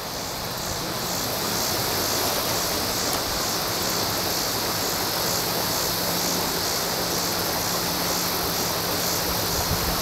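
Steady rush of creek water pouring over a waterfall, an even hiss that swells slightly in the first second and then holds.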